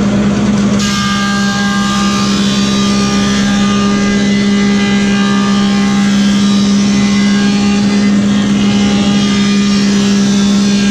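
Woodmaster 725 planer with a helical cutterhead running with a steady motor hum. About a second in, a hardwood board enters and the cutterhead cutting it adds a loud hiss with several steady whining tones, which carries on as the board feeds through.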